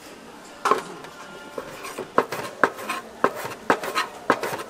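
Kitchen utensils and dishes knocking and clinking: a run of sharp, irregular knocks, about two a second, starting just under a second in, some with a short metallic ring.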